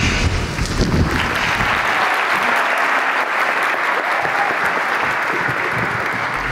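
An audience applauding, the clapping building up about a second in and then going on steadily.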